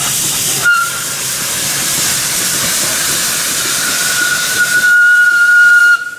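A 760 mm narrow-gauge steam locomotive pulling away with steam hissing from its open cylinder drain cocks. Its steam whistle gives a short toot under a second in, then a long steady blast from about four seconds in that grows louder and cuts off sharply near the end.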